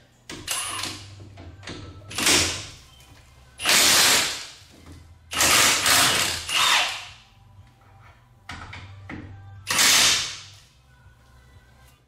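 Milwaukee M18 cordless impact wrench hammering in about six short bursts, the loudest about four seconds in, as it breaks loose and spins out the 15 mm caliper bracket bolts.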